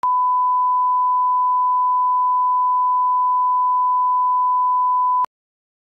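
1 kHz reference tone of a bars-and-tone test signal: a single steady, pure beep that cuts off suddenly about five seconds in.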